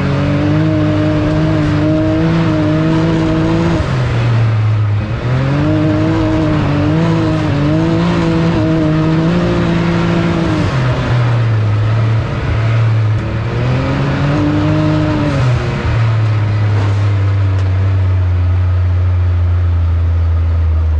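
Can-Am Maverick X3 side-by-side's three-cylinder engine heard from inside the cab while driving, rising and falling in pitch with the throttle three times, then holding a steady low note for the last few seconds.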